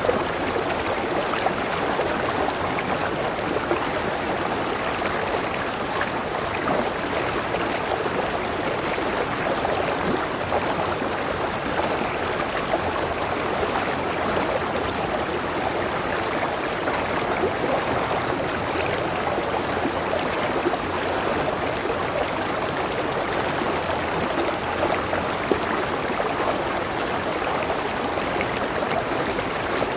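Clear river water rushing and gurgling steadily over rocks.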